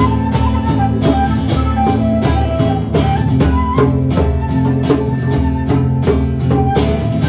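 Live band playing an instrumental passage with strummed guitar and bass under a melody line of held notes, with a steady beat.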